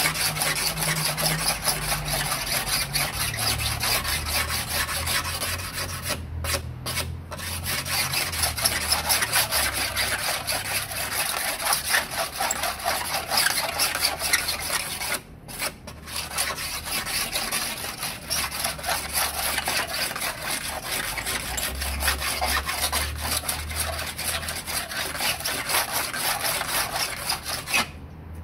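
Rapid back-and-forth strokes abrading cured Zpoxy resin over fiberglass cloth on a model airplane fuselage, knocking the resin down by blade scraping and sanding, with brief pauses about six and fifteen seconds in.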